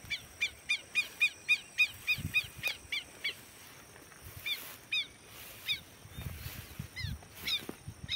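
A bird calling: a quick run of short, down-slurred notes, about four a second, for the first three seconds, then slower, spaced single calls.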